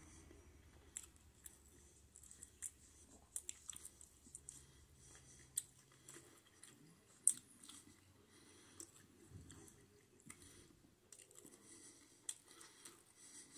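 Faint close-up chewing of takeout food with the mouth closed, with scattered soft clicks and wet smacks of the mouth; one sharper click about seven seconds in.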